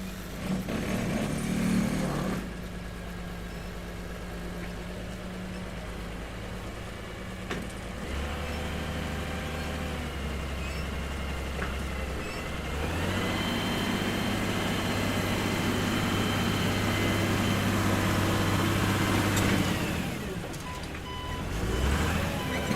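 Heavy construction vehicle's diesel engine running, revving up in two steps with a high whine over it, then settling back down near the end. Short evenly spaced reversing beeps start just before the end.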